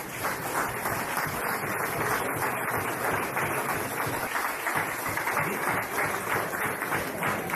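An audience applauding, many hands clapping steadily.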